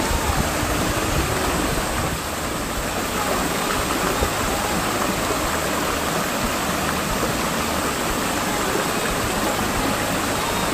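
Stream water rushing, a steady even hiss.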